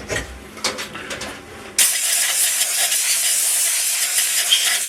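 Compressed-air blow gun blasting swarf off a freshly drilled part in a milling vise: a loud, steady hiss that starts suddenly about two seconds in and cuts off sharply, after a few light metallic clicks.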